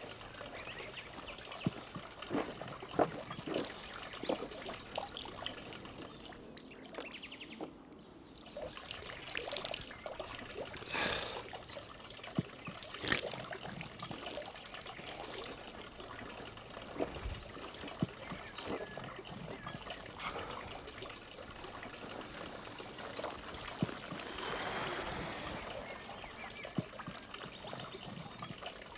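Water trickling from a concrete spring fountain, with scattered light knocks and handling sounds.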